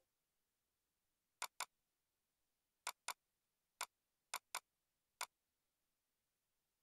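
Computer mouse clicking: eight short, sharp clicks, several in quick pairs like double-clicks, with silence between them.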